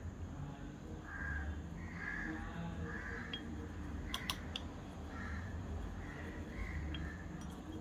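Crows cawing over and over, with a few sharp clicks about four seconds in and a steady low hum underneath.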